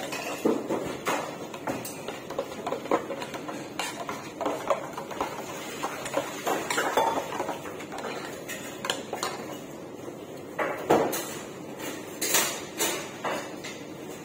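Irregular clinks and knocks of a metal bar tool against a stainless steel cup as a cocktail is mixed, with the sharpest knocks past the middle.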